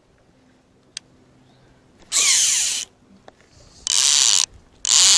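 Baitcasting reel's drag buzzing in three short bursts, about half a second each, as line is pulled off the spool, with a couple of small clicks before.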